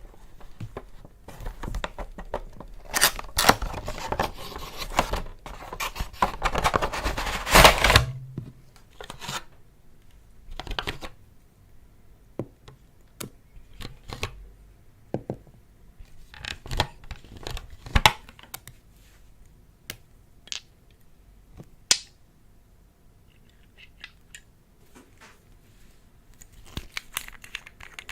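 Slime being worked by hand: several seconds of dense crackling, then scattered clicks and pops.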